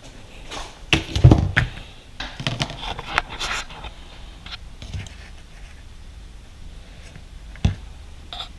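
Parts and tools being handled by hand: a quick run of clicks, knocks and scrapes in the first few seconds, a few lighter clicks, then one sharp knock near the end.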